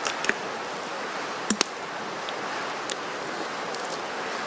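Wood campfire crackling: a few sharp pops, the loudest pair about a second and a half in, over a steady hiss.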